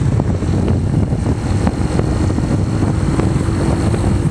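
Motorcycle engine running steadily while riding, with wind rumbling on the microphone; a faint steady hum joins about a second in.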